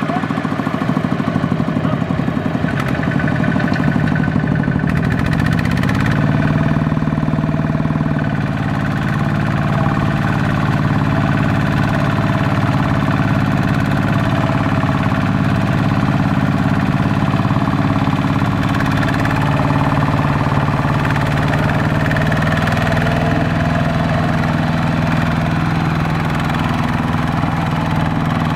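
Single-cylinder diesel engine of a two-wheel walking tractor chugging steadily under load as it pulls a trailer of rice sacks through mud, its pitch rising slightly about five seconds in.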